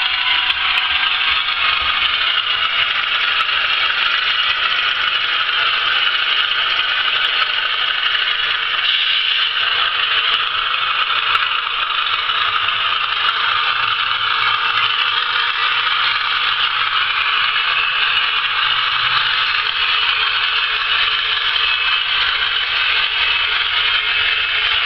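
Hornby Class 31 OO-gauge model diesel locomotive running, its sound decoder playing a steady diesel engine sound through a small speaker over the rattle of the model running on the track.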